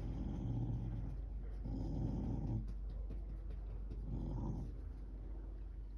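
Dog growling in three low, rough rumbles, guarding the tennis ball held between its paws from a hand reaching in.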